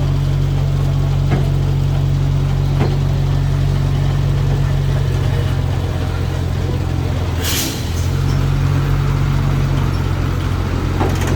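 Heavy diesel engine of road-works machinery running steadily with a deep hum. About seven and a half seconds in there is a short hiss, and the engine note dips briefly.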